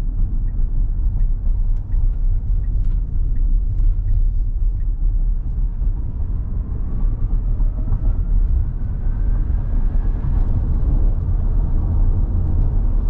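Road and wind noise inside a Tesla Model Y's cabin at speed, a steady low rumble. A faint rising whine runs from about six to ten seconds in as the car's electric motor accelerates up the on-ramp.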